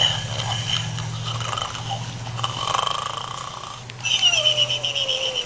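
Domestic pig snoring: a low, rattling snore on its breaths, turning raspier about four seconds in with a falling whistle-like tone.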